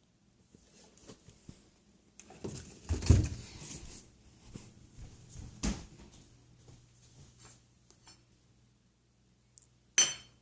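Irregular handling noises: rubbing and knocks, loudest about two to four seconds in, with a sharp click near the end.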